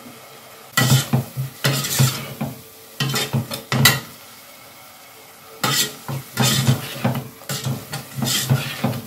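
Long metal slotted spoon stirring a thick masala of onion, tomato and fresh mint in a stainless steel stockpot, scraping against the pot's sides and base in runs of strokes, with a pause of about a second and a half near the middle.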